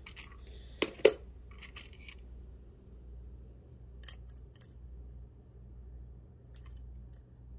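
Metal ball-chain ceiling-fan pull chains with brass fobs clinking as they are handled and dangled over a speaker magnet to test whether they are brass. A couple of sharper clicks about a second in, then light, scattered ticks of chain and metal.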